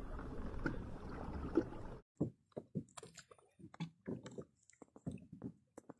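A steady low rush of wind and water on the microphone of a fishing kayak. About two seconds in it cuts off suddenly, leaving faint scattered taps and ticks of small water slaps against a kayak hull.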